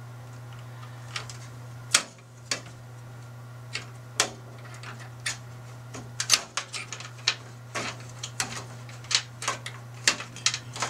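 Sharp, irregular clicks and clacks of Koolance quick-disconnect water-cooling fittings being twisted and pulled apart, with the tubing handled, over a steady low hum.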